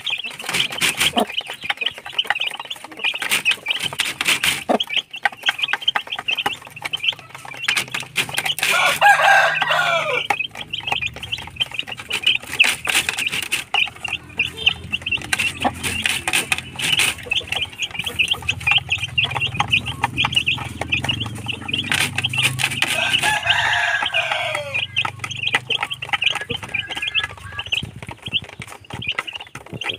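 Two-week-old chicks peeping constantly as they feed, with a hen clucking among them and taps of pecking at the trough feeder. Twice, about nine seconds in and again about twenty-three seconds in, an adult bird gives a longer drawn-out call of a second or two.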